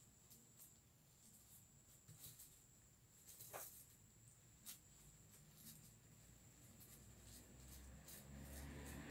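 Near silence with faint rustling and small clicks from hands shaping a handmade flower, and one brief falling squeak about three and a half seconds in.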